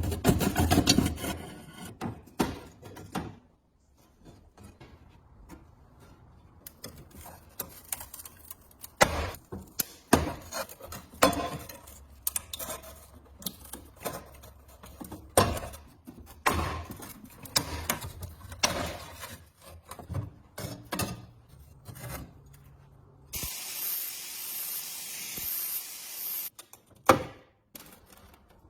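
Irregular scraping, rubbing and knocking of hand work on gas heater parts. Near the end comes a steady spraying hiss lasting a few seconds, then a couple more knocks.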